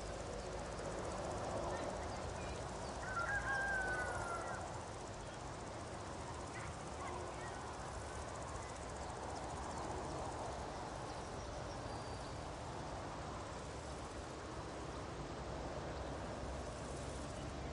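Meadow nature ambience: a steady soft outdoor hiss with a few faint chirps, and a short bird call about three seconds in that is the loudest sound.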